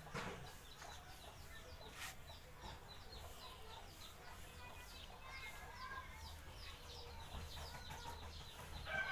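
Faint chickens clucking and a small bird chirping over and over in quick succession, over a steady low background hum.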